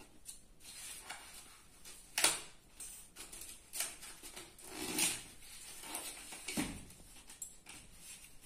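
Corrugated cardboard wrapping being picked at, torn and peeled open from around a small cardboard box: scattered rustles and scrapes, the loudest a little after two seconds and about five seconds in, with a soft thump about two-thirds of the way through.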